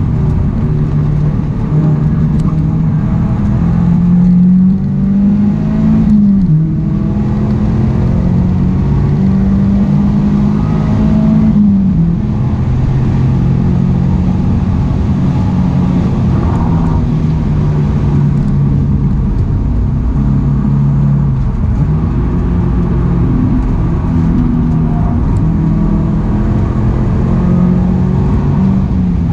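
A Mazda MX-5 NC's four-cylinder engine, heard from inside the cabin, pulling hard on track. Its pitch climbs and drops sharply at two upshifts in the first twelve seconds, then the revs rise and fall through the corners.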